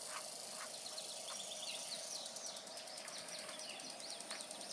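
Small birds chirping in quick rising and falling notes, with a fast insect trill joining about halfway through. A few faint clicks are heard early on.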